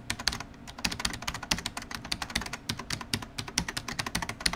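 Computer keyboard typing: a rapid, continuous run of key clicks, several a second, as a sound effect for on-screen text being typed out.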